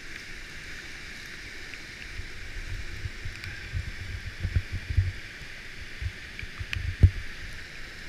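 Rushing whitewater of a creek rapid at high water, a steady hiss, with irregular low thumps on the microphone from about two seconds in and one sharp knock about seven seconds in.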